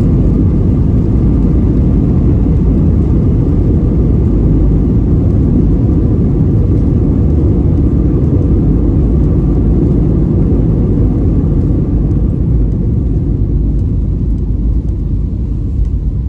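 Jet airliner heard from inside the cabin during the landing roll, with its wing spoilers raised: a loud, steady deep rumble of engines and runway, dying down near the end.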